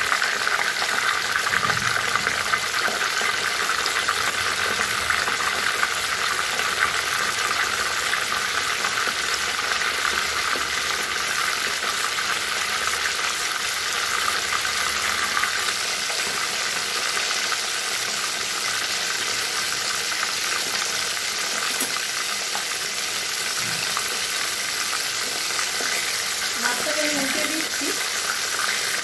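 Katla fish heads frying in hot mustard oil in a kadai: a steady, dense sizzle with fine spattering.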